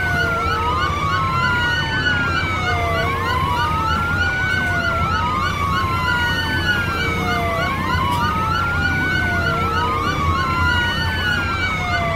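Siren wailing in a repeating rise and fall about every two and a half seconds, with several overlapping sweeps, over a steady low hum.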